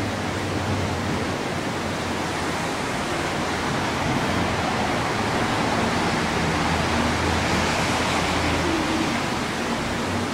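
Creek water rushing steadily below the bridge, a continuous even noise.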